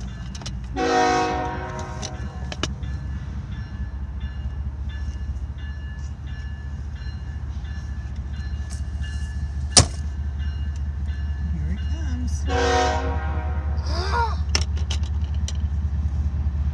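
Diesel freight locomotive horn sounding two short blasts about eleven seconds apart, over a steady low rumble that slowly grows louder. There is one sharp click about halfway through.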